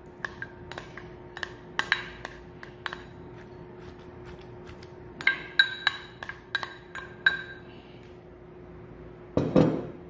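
A spoon scraping and tapping against a ceramic bowl as diced carrots are knocked out into a ceramic mixing dish: a string of light clicks and taps, then a cluster of ringing clinks about halfway through. Near the end there is a heavier knock as the emptied bowl is set down on the table. A faint steady hum runs underneath.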